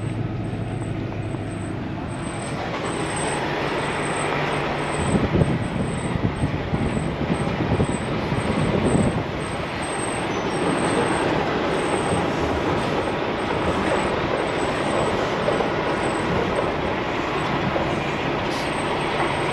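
Truck driving on the road: a steady engine hum, then steady road and traffic noise taking over about five seconds in.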